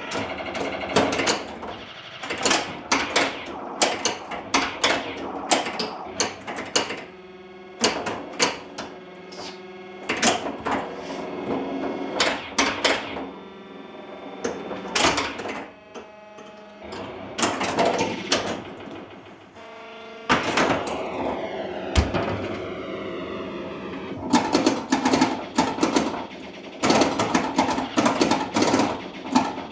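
1980 Williams Firepower pinball machine in play: rapid sharp clacks and knocks from its flippers, bumpers and targets, mixed with the game's electronic sound effects. About twenty seconds in, a run of falling sweeping tones.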